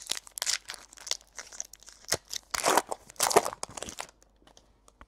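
Foil wrapper of a trading card pack crinkling and tearing while the cards are handled, a run of quick crackly rustles that stops about four seconds in.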